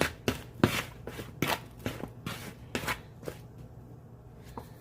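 A utensil knocking and scraping against cookware while stirring, in a run of short sharp strokes about two or three a second that thins out after about three seconds.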